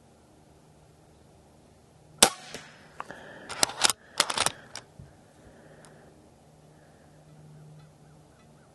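Umarex Zelos .22 PCP air rifle firing a single shot, a sharp crack about two seconds in. About a second later comes a quick run of mechanical clicks and clacks as the action is cycled for the next pellet.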